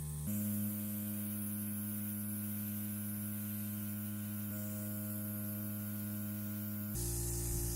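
Background music of sustained droning chords, shifting to a new chord about a quarter second in and again near the end.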